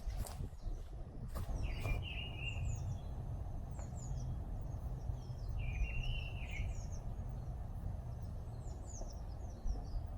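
Songbirds calling: a short phrase repeats twice, about four seconds apart, over scattered high chirps. A steady low rumble runs underneath, and there are a couple of clicks near the start.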